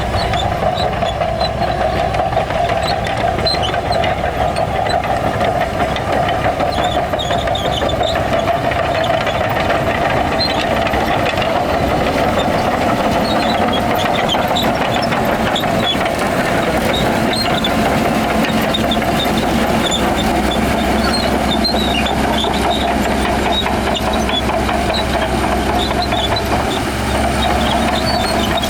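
A Shantui bulldozer's diesel engine running steadily under load, with scattered light clicks and clanks over the drone.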